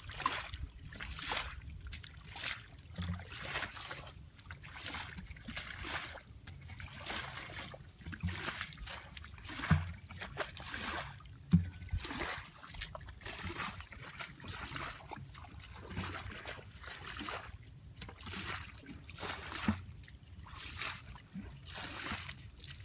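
Shallow muddy water splashing and sloshing over and over, in short bursts about every half second, with a few dull thumps among them.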